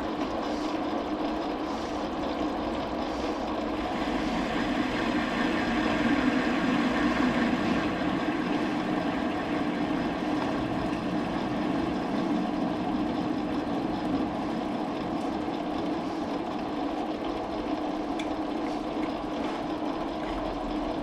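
Metal lathe running steadily while facing off the end of a workpiece, a little louder for a few seconds early on.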